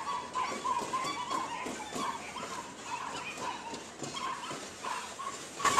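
Freight train of tank cars rolling past on metre-gauge track, wheels clacking, with a short high-pitched tone repeating irregularly about three times a second. A loud burst of sound starts right at the end.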